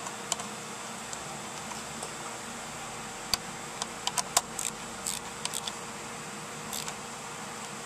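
Scattered sharp metal clicks and clinks from a socket and ratchet being handled and fitted onto an ignition coil's 10 mm hold-down bolt, bunched together a few seconds in, over a steady background hum.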